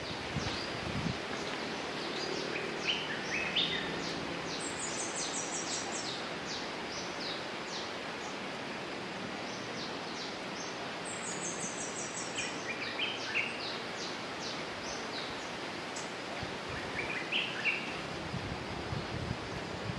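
Forest ambience: a steady hiss with several birds calling faintly. Two quick runs of very high notes step down in pitch, mixed with scattered short chirps and brief stepped phrases.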